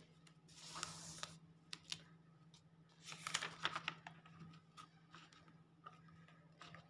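Faint sounds of paper and craft tools being handled on a table: a soft paper rustle about a second in, then a quick run of light clicks and taps between about three and four seconds in.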